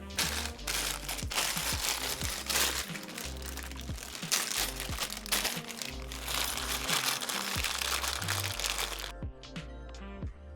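Plastic packaging crinkling and rustling as it is handled, stopping suddenly near the end, over background music with a steady bass line and a few light clicks.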